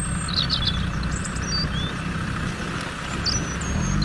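A steady low rumble with birds chirping several times over it.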